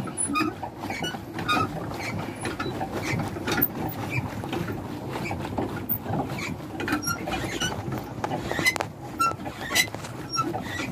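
Small pedal boat under way: a steady low churning of water, with many short, irregular squeaks and ticks.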